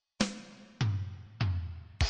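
Background music: a drum fill of three hits about half a second apart, each lower in pitch than the last, ending in a cymbal crash.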